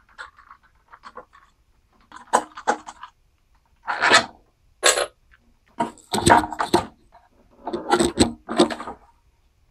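Ratchet wrench clicking in short rasping bursts, about eight of them, some in quick pairs, as the 1/4-inch bolts holding the engine cover are backed out.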